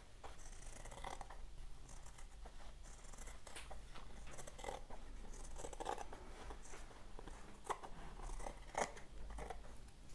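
Scissors making many short, faint snips through fabric, trimming it along the edge of an oval PVC plaque.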